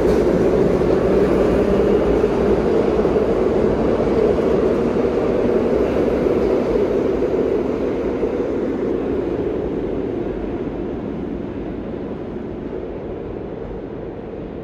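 Vintage 1930s-era New York subway train pulling out of the station and running off into the tunnel; its wheel and motor noise fades steadily as the last car recedes.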